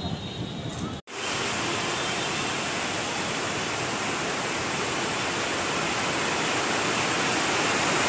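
Steady hiss of rain falling, starting abruptly about a second in and growing slightly louder toward the end. Before it, quiet outdoor ambience with a few bird chirps.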